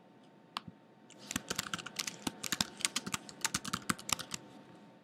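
Typing on a computer keyboard: a single click about half a second in, then a quick run of keystrokes for about three seconds as a short reply is typed.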